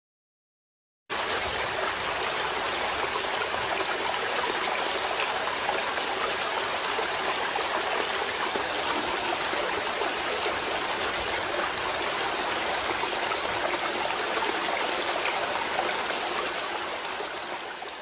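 Steady rushing noise, like a flowing stream, starting about a second in after a short silence and fading near the end.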